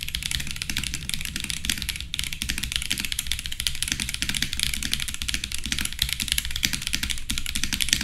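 Fast, continuous typing on an Akko 5075B Plus mechanical keyboard: a dense stream of key clacks. Each key makes two distinct sounds, one as it is pressed down and one as it springs back up.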